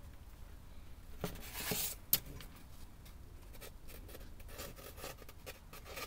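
Hot glue gun being handled and worked along the edge of a board: a short rubbing scrape, one sharp click about two seconds in, then a run of faint small clicks.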